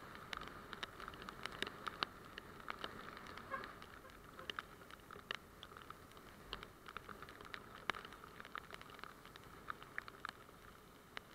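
Raindrops tapping irregularly on the camera's housing, many sharp ticks a second, over a faint steady hiss of rain and road spray.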